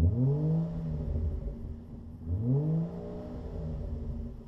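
Ford Fusion Sport's 3.5-litre V6, its two rear mufflers deleted, revved twice while the car stands still. Each rev climbs quickly, holds briefly and falls back, the first at the start and the second about two and a half seconds in.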